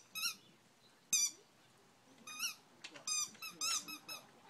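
Short, high-pitched squeaks, about seven of them, coming at irregular intervals.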